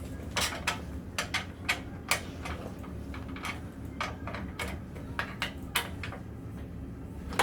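Irregular light clicks and clacks of aluminum frame pieces and corner joints being pulled apart and handled.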